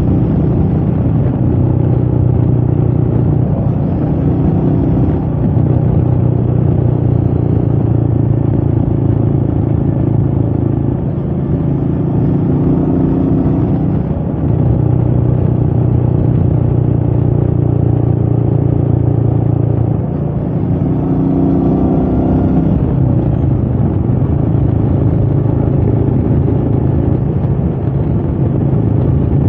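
Royal Enfield Meteor 350's single-cylinder engine running under way on the road. The engine note dips briefly about three times and then picks up again.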